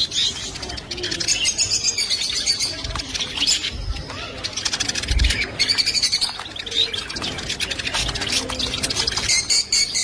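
Eurasian siskin singing: a fast, dense twitter of high chirps and trills, unbroken throughout.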